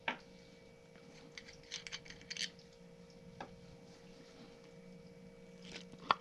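Aluminium swimbait injection mold and its small brass fittings being handled on a wooden workbench: a sharp metallic click at the start, a cluster of light clicks and taps about two seconds in, a single tap midway, and a couple more clicks near the end as the mold halves are pulled apart.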